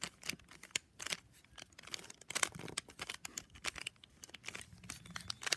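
Plastic puzzle cube being turned by hand: an irregular run of sharp clicks and clacks as its layers are twisted.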